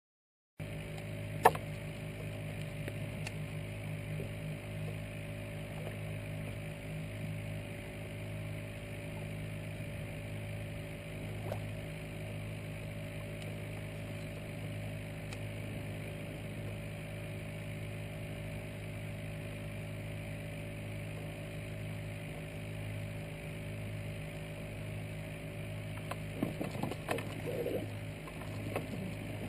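A steady, low mechanical hum with a single sharp click about a second and a half in. Near the end comes a run of small clicks and rattles as a baitcasting reel is handled.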